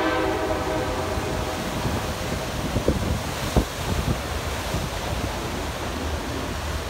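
A locomotive horn's chord cuts off right at the start, then the passenger train rumbles along the track with a steady rush of wind and river water. Two sharp knocks come about three seconds in.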